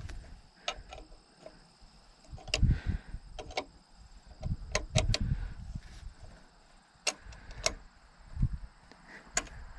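Steel wrenches clinking on a carburetor's fuel-line fitting as it is loosened: a scattered series of sharp metal clicks and ticks, with dull knocks and bumps between them.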